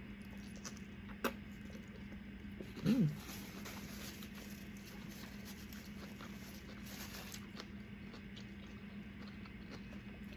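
Close-miked chewing and mouth sounds of eating a toasted tortilla wrap, with one sharp click a little over a second in and a short "mm" about three seconds in, over a steady low hum.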